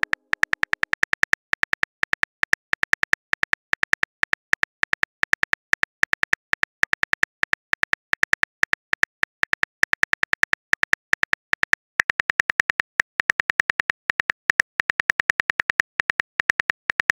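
Phone keyboard click sounds, one short tap per letter in a rapid, uneven patter of several taps a second, as a long text message is typed out.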